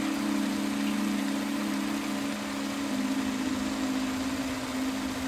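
Sustained low synthesizer chords, with a slow chord change about three seconds in, over a steady hiss.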